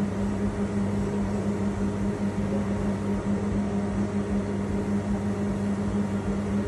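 Industrial robot controller cabinet humming steadily, a low electrical tone with fan noise, while the new CPU board loads data.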